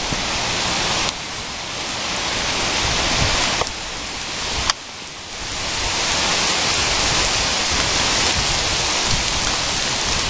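Heavy hurricane rain pouring onto wet pavement and trees as a loud, steady hiss. It drops off abruptly about a second in and twice more around four to five seconds in, then swells back up.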